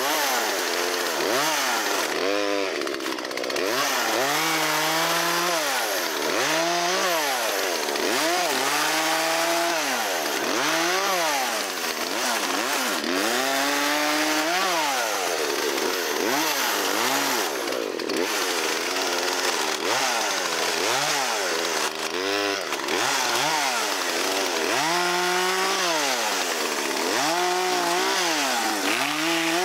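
A vintage two-stroke chainsaw revving up and dropping back over and over, its engine pitch rising and falling every second or two as it is worked through limbs.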